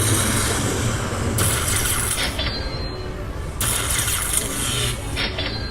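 Lightning Link slot machine sounds as the hold-and-spin bonus ends and its win is tallied: a dense rattling hiss that swells twice, over a steady low hum.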